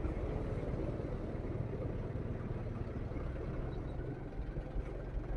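Motorcycle engine running steadily while riding, with a low rumble of road noise.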